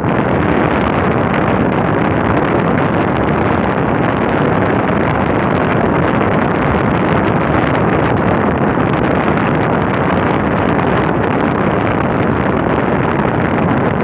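Air-conditioner unit running with its fan blowing: a loud, steady rush of air.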